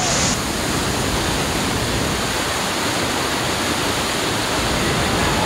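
Whitewater rapid rushing loud and steady: the even, unbroken noise of heavy river water pouring over and around boulders.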